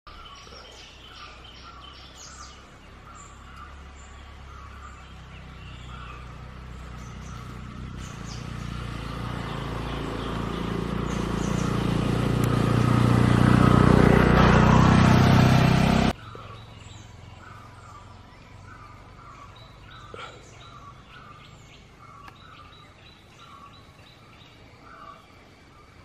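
Forest ambience with a bird calling over and over, a short note about twice a second. A loud rushing noise builds up over several seconds, drowns out the calls, and cuts off abruptly about two-thirds of the way through.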